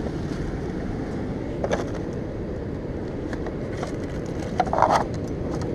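Steady rush of sea surf on the rocks, with a few light clicks and knocks as a hand rummages through a plastic cooler box, a small cluster of them near the end.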